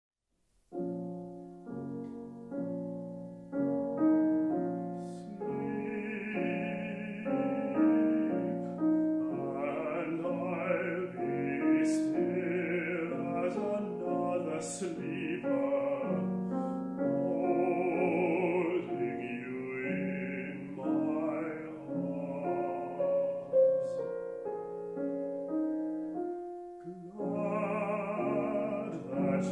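A baritone singing a classical art song with vibrato, accompanied by a grand piano. The piano plays alone for the first few seconds before the voice comes in.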